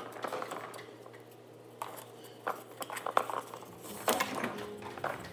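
Plastic faux-wood blind slats clicking and tapping against one another as they are handled and their strings are worked. The clicks are light and irregular, sparser in the first couple of seconds and sharper and more frequent in the second half.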